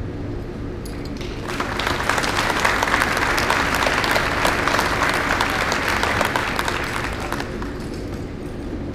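A crowd applauding. The clapping starts about a second and a half in, holds steady, then dies away a little past the middle of the second half.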